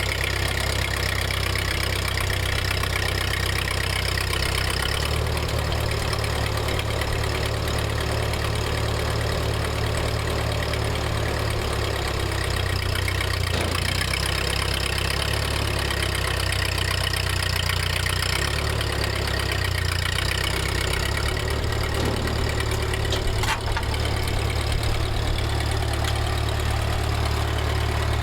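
1948 Ford 8N tractor's four-cylinder flathead petrol engine running steadily.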